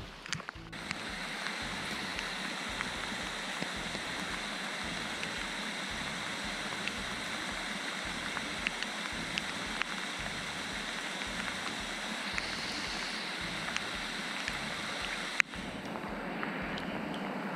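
Heavy rain falling on a lake's surface: a steady hiss with scattered sharp drop ticks. A single sharp click near the end, where the sound briefly drops out.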